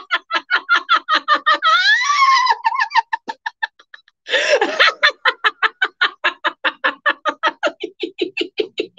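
A woman's deliberate, sustained laughter: rapid 'ha-ha-ha' pulses, about five a second, with a high rise and fall in pitch about two seconds in. A short breath pause comes a little after three seconds, then the pulsed laughter starts again and runs on.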